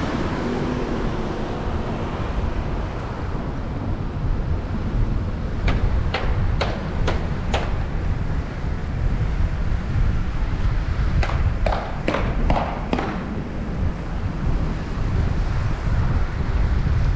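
Low, fluctuating rumble of a car driving slowly along a village street, with wind buffeting the car-mounted camera's microphone. Two runs of five or six sharp clicks, about two a second, come about a third of the way through and again about two-thirds through.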